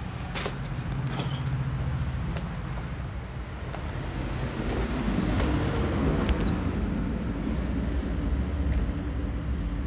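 Steady low rumble of road traffic, with a few faint sharp clicks.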